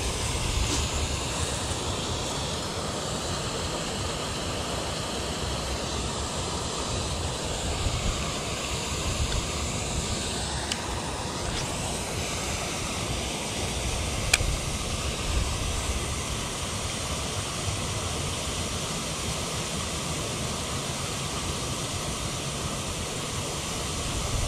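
Wind buffeting the microphone: a steady rushing noise with an uneven low rumble. A few faint clicks from the baitcasting reel come about halfway through, around a cast.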